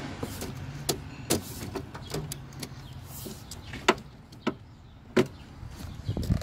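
Plastic clips of a car's windshield cowl panel snapping into place as the panel is pressed down by hand: several sharp clicks a second or more apart. A low hum fades out about halfway through.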